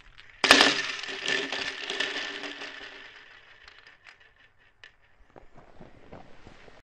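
Cartoon sound effect: a sudden loud burst that fades away over about three seconds, followed by a scatter of faint crackles.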